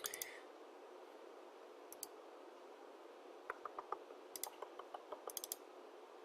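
Computer mouse and keyboard clicks: one click at the start, a couple about two seconds in, then a quick run of clicks from about three and a half to five and a half seconds, over a faint steady hiss.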